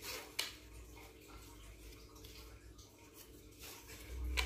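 Telescopic landing-net pole being handled, its sections sliding with faint rubbing and two sharp clicks, one about half a second in and one near the end.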